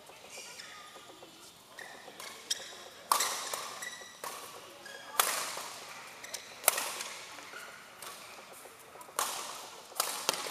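Badminton rackets striking a shuttlecock back and forth in a fast doubles rally: sharp cracks roughly every one to two seconds, each ringing briefly in the hall, with shoes squeaking on the court between hits.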